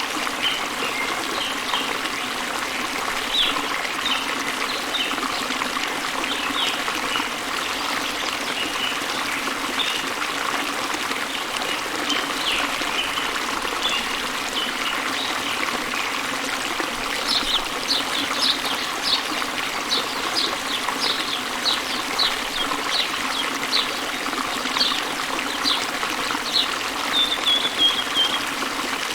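Steady rush of a waterfall with songbirds chirping over it. From about halfway through, the chirps come quicker and sharper, and a short trill follows near the end.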